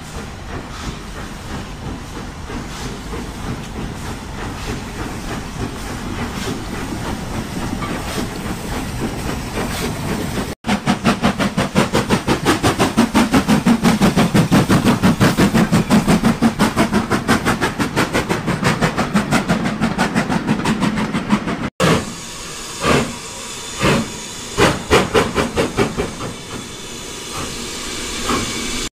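HO scale model trains running on the layout, in three clips: a steady running noise with light ticks, then a louder, fast regular beat as a train runs close by, then a quieter stretch broken by a few separate sharp clicks.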